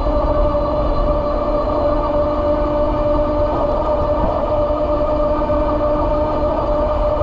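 E-bike electric motor whining at a steady pitch while cruising at about 32 mph, over a continuous low rumble of wind on the microphone.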